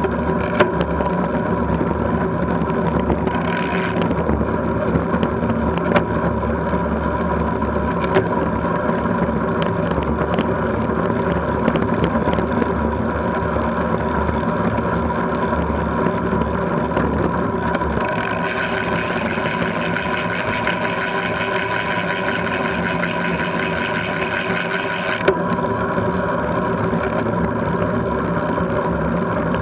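Steady wind and road noise picked up by a bike-mounted camera at about 25–30 mph on a lane, with a few sharp clicks from bumps. The noise turns hissier for several seconds past the middle.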